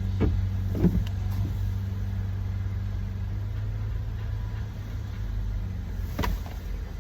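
Car engine idling with a steady low hum, heard from inside the cabin. A few short clicks cut through it, two close together near the start and one about six seconds in.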